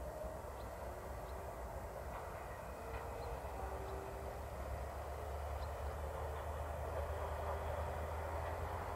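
A locomotive-hauled passenger train passing at a distance: a steady rumble of wheels on rail that grows slowly louder after about halfway through.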